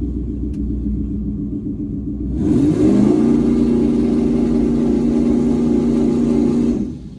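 Single-turbo Ford Mustang engine idling, then revved about two and a half seconds in and held steady at the torque converter's stall speed against the trans brake to build turbo boost, a loud hiss running over the engine note. The revs drop suddenly near the end as the throttle is let off.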